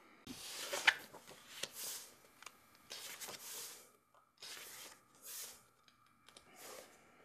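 A series of short scraping, rustling noises, six or so, each under a second, with sharp clicks in the first one.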